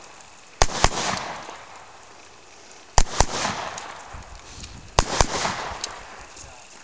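AR-15 carbine fired in three double taps, two quick shots each time, the pairs about two seconds apart, each pair trailing off in a decaying echo.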